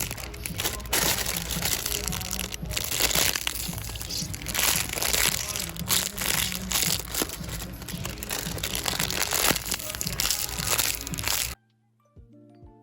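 Busy store ambience with rustling and crinkling handling noise, under background music and indistinct voices. Near the end it cuts off suddenly into a quiet, clean music track of held notes and light ticks.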